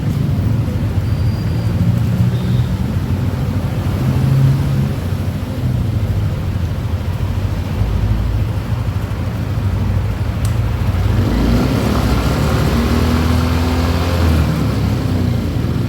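Yamaha NMAX scooter engine and drivetrain running during a road test after the final-gear repair, with road and traffic noise around it. The sound swells louder and fuller a few seconds before the end.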